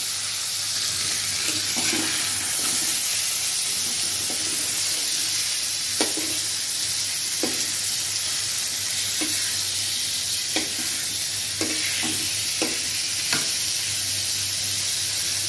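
Hilsa fish pieces sizzling steadily in hot oil in a wok, with scattered sharp clicks every second or two.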